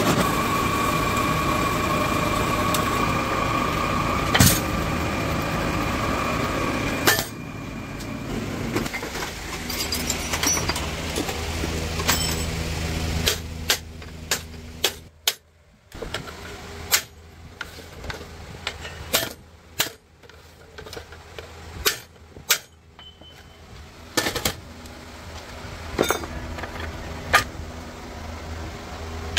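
A workshop machine runs with a steady whine for about the first seven seconds, then stops. After that a hammer strikes metal at irregular intervals over a low hum.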